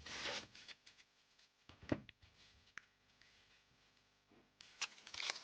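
Faint rustling and light clicks of trading cards being handled, then crinkling of a foil booster pack wrapper building up near the end.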